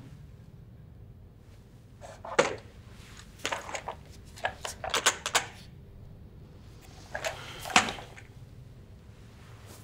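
Handling noises of objects being moved on a wooden sideboard shelf: a few scattered knocks and clatters in short clusters, the loudest near the end as a box is lifted out.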